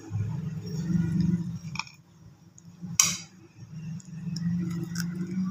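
A few light clinks and taps, like china or glass, the sharpest and loudest about three seconds in, over a low background hum.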